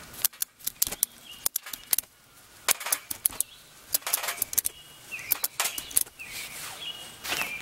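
Ratchet strap being cranked tight: a run of sharp, irregular metallic clicks as the ratchet tensions the line holding a trampoline spring. Birds chirp faintly in the background.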